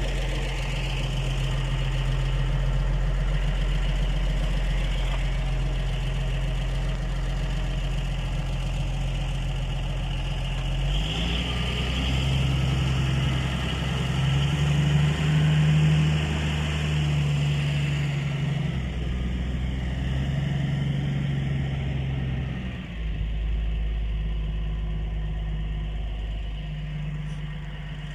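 A motor vehicle's engine runs steadily with a low hum, its note changing around eleven seconds in and again around twenty-three seconds in.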